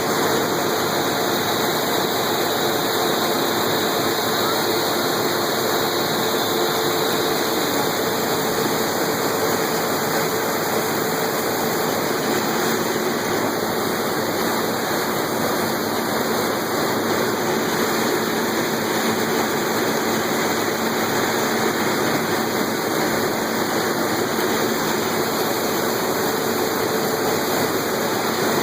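Farm harvest machinery running steadily: an even, continuous machine noise with a faint low hum and no change in speed.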